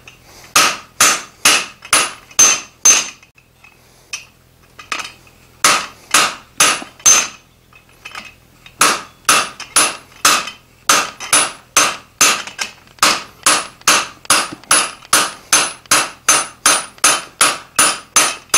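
Hand hammer striking the top die of a guillotine tool on an anvil, forging a tenon on a red-hot steel bar between tenoning dies; each blow rings sharply. A few blows come first, with a pause, then a short group, then a steady run of about two to three blows a second.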